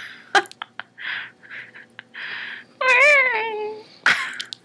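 A girl making weird vocal noises: a few breathy hisses and mouth clicks, then a loud, wavering, meow-like whine about three seconds in that slides down in pitch.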